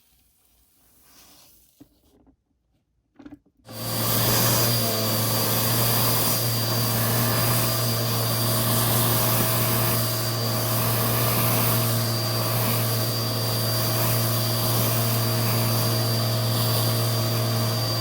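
Vacuum cleaner switched on about four seconds in, then running steadily with a low hum and a thin high whine.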